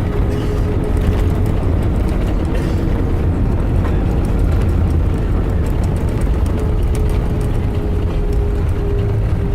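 Airbus A320-200 cabin noise heard from a window seat: a loud, steady low rumble of engines and airflow, with a steady hum running through it.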